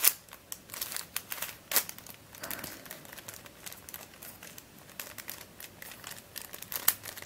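Plastic Dayan+MF8 pentahedron twisty puzzle being turned and scrambled by hand: irregular clicking and scraping of its layers, with sharper clacks about two seconds in and near the end. The layers are very stiff and have to be forced round.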